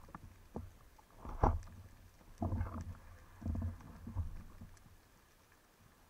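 A speargun fires underwater with a single sharp snap about a second and a half in, spearing a corvina (brown meagre). Several dull low thumps follow over the next few seconds as the speared fish is taken in hand.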